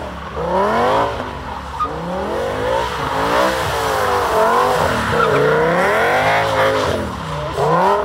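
BMW E60 M5's 5.0-litre V10 revving hard, its pitch rising and falling about once a second as the car slides around in circles, with tyres squealing through the middle stretch.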